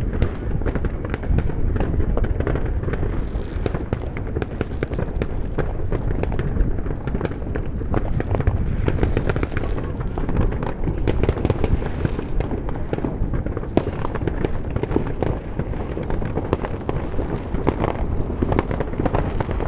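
Dense, continuous barrage of fireworks and firecrackers: many overlapping bangs and crackles with no pause.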